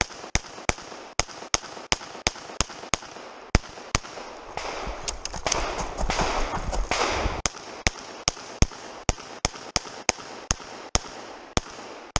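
Semi-automatic pistol fired in rapid strings, some thirty shots, many in quick pairs. About six to seven seconds in the shooting breaks briefly under a rushing noise, then picks up again.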